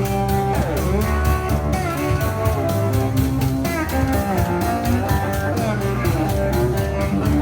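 Guitar music played with a steady beat, a melody of held notes with a few sliding ones over it.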